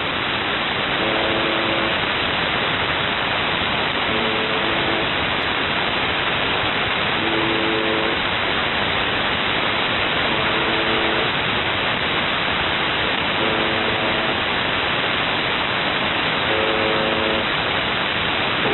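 UVB-76 shortwave station 'The Buzzer' received through heavy static hiss: its short buzz tone repeating about every three seconds, six times.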